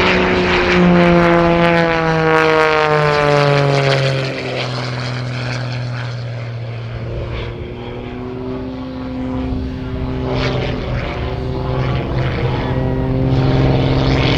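Wolf Pitts Pro aerobatic biplane's six-cylinder 540 cubic inch Lycoming engine and propeller in flight. The engine note falls in pitch over the first four seconds, fades somewhat in the middle, then grows louder again near the end.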